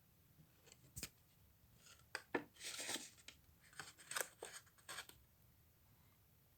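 Crisp white paper being handled and pressed together while glued into a box shape: a sharp click about a second in, then a run of short crinkles and rustles that stops about five seconds in.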